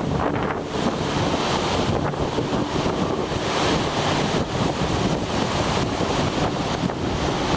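Sea waves washing in, with a strong wind gusting over the microphone.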